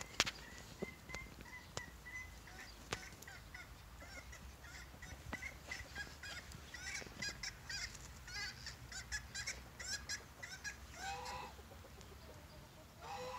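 Mixed flock of poultry, guinea fowl and chickens, calling around the feeding ground: many short, high chirping calls repeating irregularly, with a lower, honk-like call about eleven seconds in and again near the end. A few sharp clicks come in the first three seconds.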